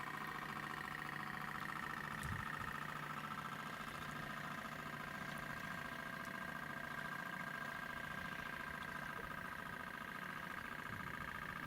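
Small electric drive motor of a radio-controlled model tugboat running steadily with a high-pitched whine and a low hum, with a brief thump about two seconds in.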